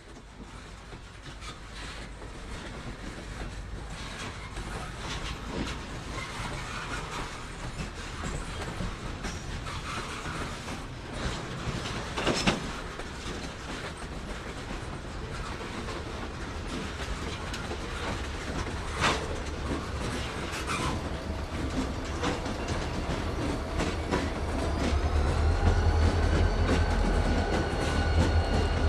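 CSX freight train approaching on jointed track: a diesel locomotive's low rumble grows steadily louder, with wheels clicking over rail joints. A steady whine rises in pitch and then holds near the end as the locomotive draws close.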